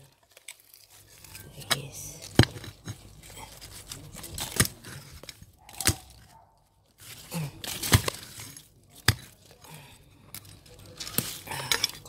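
Digging in soil to pull out sweet potatoes: scraping, tearing and rustling of earth, roots and leaves, broken by several sharp knocks.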